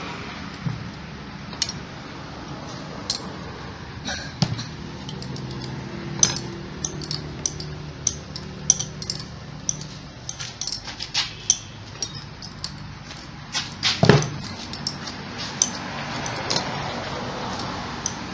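Scattered metallic clicks and clinks of hand tools, bolts and small parts being handled and tapped while a carburettor is fitted onto a Suzuki Alto cylinder head, with one louder knock about three-quarters of the way through.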